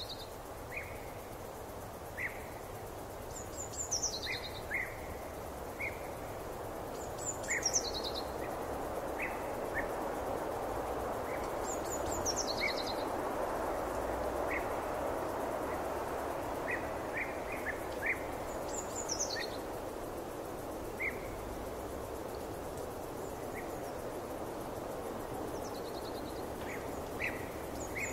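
Forest ambience: a steady rushing background that swells through the middle, over which a songbird repeats a short high phrase that falls in pitch every few seconds, with scattered short chirps from another bird lower down.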